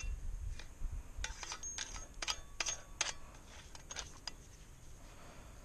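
Steel blade of a small folding camping shovel digging into fire-pit ash and clinking against buried broken glass and debris: a quick run of sharp clinks between about one and three seconds in, a couple more near four seconds, then softer scraping.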